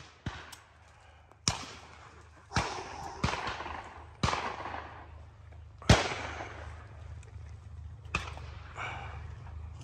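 Shotgun shots at a clay shooting ground: about five sharp reports of differing loudness, each with a short ringing tail, the loudest about six seconds in. A steady low rumble runs underneath.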